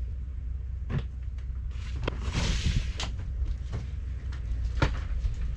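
A loaded two-wheeled hand trolley being brought in through a doorway: a few sharp knocks and clatters, with a short rushing rustle about two seconds in, over a steady low hum.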